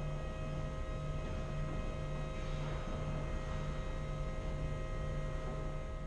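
Steady hum of an ice rink's building machinery: a low drone with a few constant higher tones.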